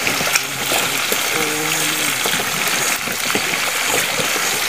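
Fish pieces (tucunaré) deep-frying in a pan of hot oil, sizzling and bubbling steadily with small crackles.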